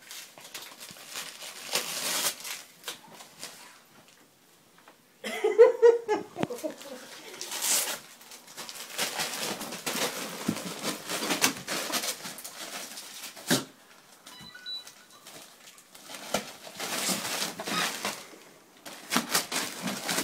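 A small dog tearing and crinkling Christmas wrapping paper off a present, in repeated scratchy bursts with short pauses. A brief voice-like sound about five seconds in is the loudest moment.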